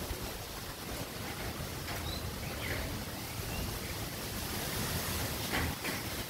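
Strong wind gusting through trees with rain falling: a steady rushing noise with a low rumble of wind on the microphone.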